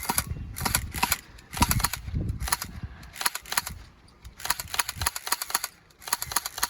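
H&K P30 electric blowback airsoft pistol firing 6 mm BBs, sharp snapping shots with the slide cycling on each. Shots come singly and in pairs at first, then in quick runs over the last couple of seconds as the magazine is emptied.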